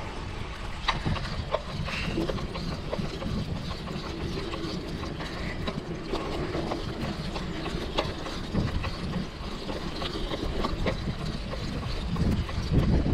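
Mountain bike riding a dirt trail: scattered clicks and rattles from the bike and its drivetrain over a steady low rumble of tyre and ground noise.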